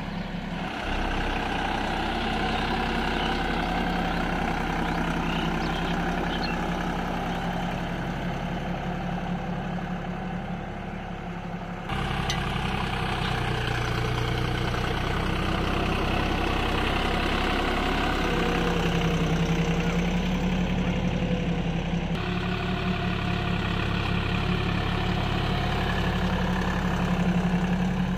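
Tractor diesel engine running steadily while pulling a land leveller over loose soil. The engine note changes abruptly a few times.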